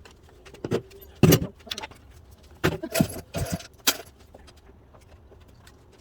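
Metal hand tools and parts clinking and clattering: a couple of sharp knocks in the first second and a half, a longer clatter around three seconds in, and one last clink.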